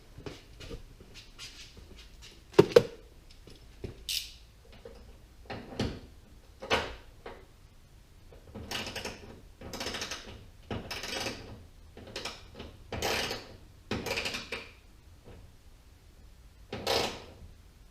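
A wrench tightening the hood-damper bracket bolt on a car: scattered light clicks and a sharp metal knock about three seconds in, then a run of short noisy strokes about a second each.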